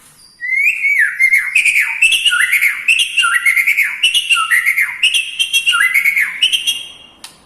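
White-rumped shama (murai batu) singing: a fast run of repeated short notes, each sliding up and then dropping, with high twittering over them. It starts about half a second in and stops shortly before the end.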